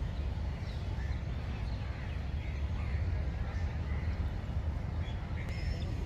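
Outdoor park ambience: a steady low rumble with birds calling over it in scattered short chirps, and a few short high whistled notes near the end.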